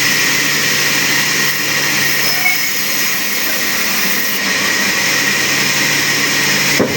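A power woodworking machine running steadily, a constant whirring noise with a steady hum. There is a brief break near the end.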